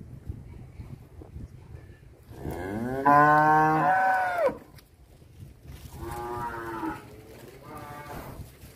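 Cattle mooing: one long, loud moo that rises in pitch and drops off at the end, starting about two and a half seconds in, then two shorter, quieter moos near the end.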